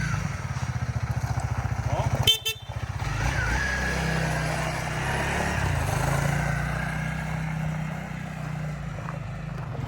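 Engine idling with a steady low pulse. About two seconds in there is a short, sharp toot, and after it a smoother, steady engine drone carries on.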